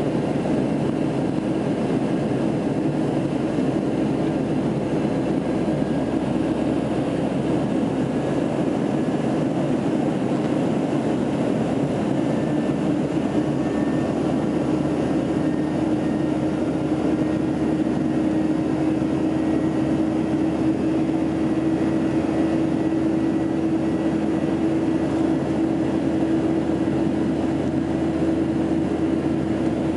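Jet airliner cabin noise in the climb: the steady drone of the turbofan engines and airflow over the fuselage. A humming tone in the noise grows stronger about halfway through.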